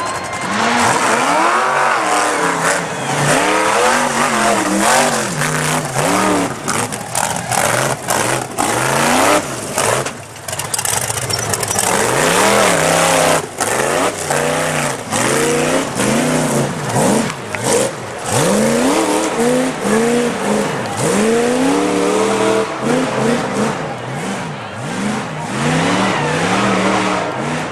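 Off-road race buggy's engine revved hard under load again and again, its pitch rising and falling about once a second, with short sharp cracks through it.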